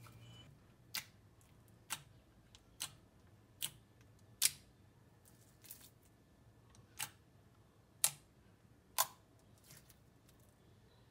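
Thick clear slime being pressed and poked, giving sharp clicking pops about once a second as trapped air bursts.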